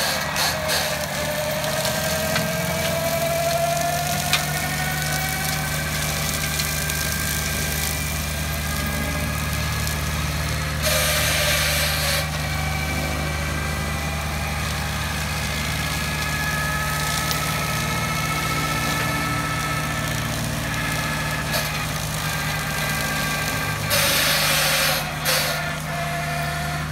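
CAT 305E mini excavator's diesel engine running steadily while its hydraulically driven Brush Wolf brush cutter spins, with a whine that slowly slides up and down in pitch as the rotor is loaded. Twice, about eleven seconds in and again near the end, a louder rough burst of a second or so as the cutter bites into brush.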